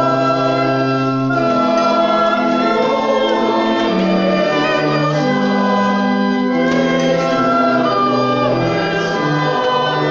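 Church congregation singing a hymn with organ accompaniment, held chords moving in steps under the voices.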